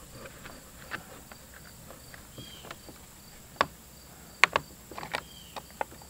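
Scattered plastic clicks and knocks from an air filter and its top cover being fitted back onto a chainsaw, with two sharper knocks about halfway through. Insects chirp steadily in the background.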